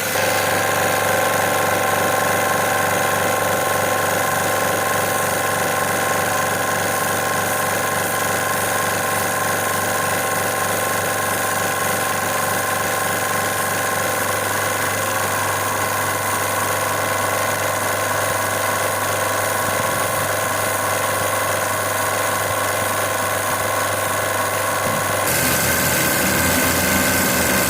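Pressure washer (water jet machine) running steadily while its spray blasts moss off a floor. The machine's steady hum and hiss shift abruptly near the end.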